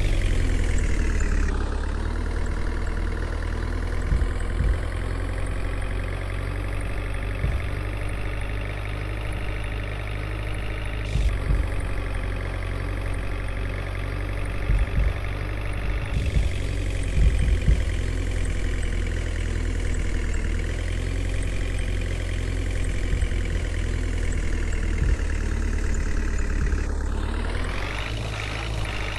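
Heavy diesel engine running steadily with a low rumble, with a few scattered knocks.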